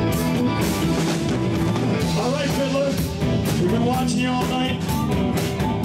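Live rock and roll band playing: electric guitar over bass and a drum kit keeping a steady beat.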